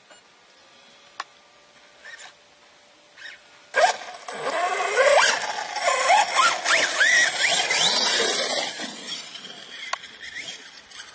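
Losi radio-controlled buggy driving off over gravel, its small engine revving up and down in quick rising and falling swoops. It starts about four seconds in, after a few quiet seconds with faint clicks, and eases off near the end.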